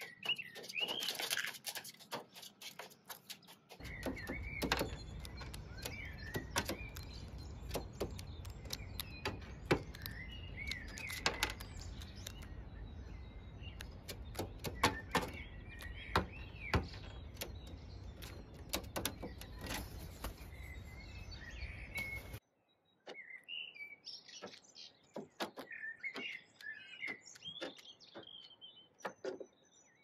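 Hooded crows' claws tapping and scraping on a metal ledge as they walk and peck, a quick run of sharp clicks, with birds chirping throughout. A steady low rumble sits underneath from about four seconds in until it cuts off about two-thirds of the way through.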